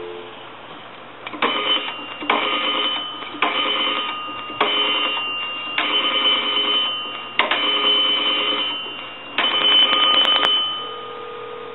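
Vintage payphone's rotary dial being dialed seven digits: after the dial tone cuts off at the start, seven runs of rapid pulse clicks follow about a second apart as the dial spins back, with the phone's bell tapping faintly along. A steady ringback tone comes on the line near the end as the call goes through.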